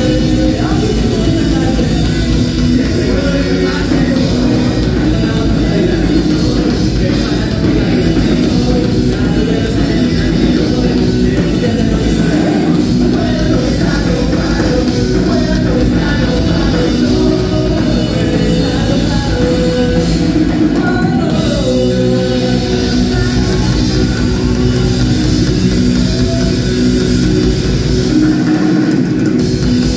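Rock band playing live and loud: drum kit and electric guitars, with some singing.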